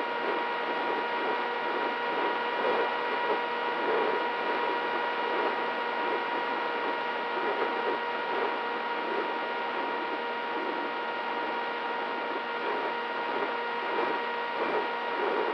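Onboard recording of a small electric flying wing in flight: the brushless motor (DYS Fire 2206 2300KV) and its 6x4 propeller give a steady high whine at an even throttle, over a rushing, fluttering air noise.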